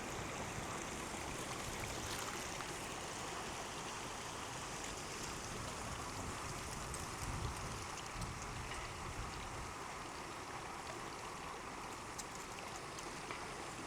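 Small stream running steadily, an even rush of water with a few faint splashes.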